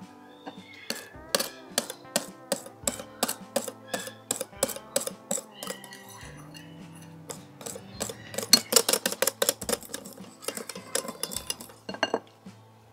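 Wire balloon whisk clicking against a glass mixing bowl while whisking a thick batter. The clicks come a couple a second at first and quicken to a rapid run about eight to nine seconds in.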